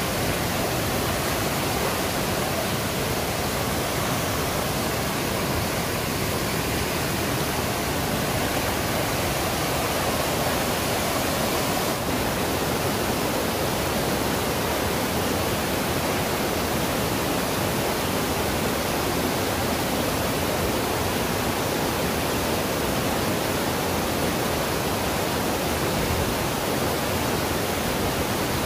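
Waterfall rushing steadily, an even roar of falling water with no breaks.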